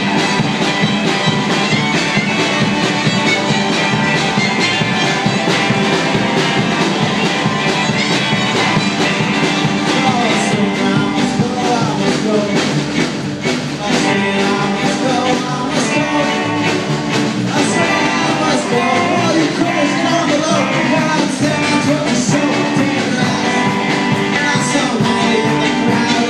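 Live band playing an upbeat folk-rock song on drum kit, acoustic archtop guitar, electric guitar and fiddle, with singing at times.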